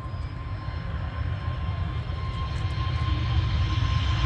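Jet engines of an Airbus A320neo airliner: a steady low rumble with a held whine, growing gradually louder as the plane approaches.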